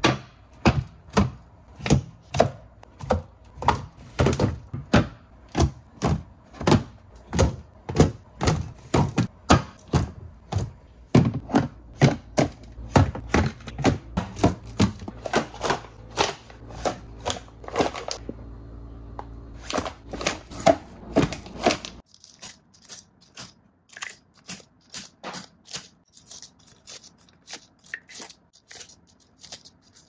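A steady, even rhythm of sharp knocks, about two or three a second, over a low hum. About two-thirds of the way through, the hum drops out and the knocks carry on more faintly.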